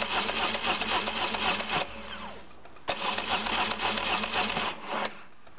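BMW oilhead boxer twin's starter motor cranking the engine in two bursts of about two seconds each. The second starts with a sharp click about three seconds in, and each stops without the engine catching. The starter engages the newly replaced flywheel cleanly, with no clashing, grinding or screeching.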